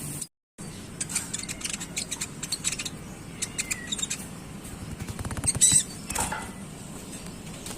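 Van Hasselt's sunbird (kolibri ninja) twittering: a rapid, high chatter of short chirps and ticks, the 'ngeriwik' call used to teach young birds. The sound cuts out completely for a moment just after the start.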